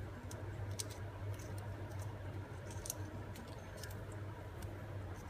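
Faint, scattered small clicks and light handling noises of paper craft pieces being pressed and handled, over a steady low hum.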